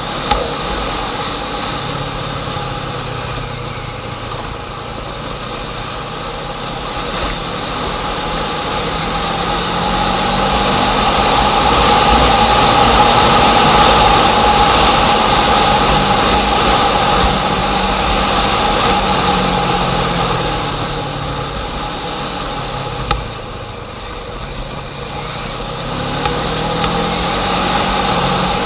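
A motor engine running steadily, growing louder about ten seconds in and easing off again after about twenty seconds. A single sharp knock comes near the end.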